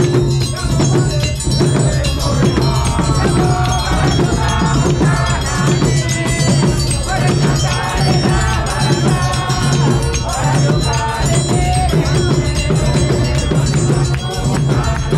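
A church choir singing a Luhya-language hymn in unison over a steady beat, with a sustained low bass under the voices.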